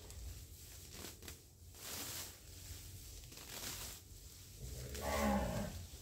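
A cow moos once near the end, a single call of about a second with a falling pitch. Scattered rustling noises come before it.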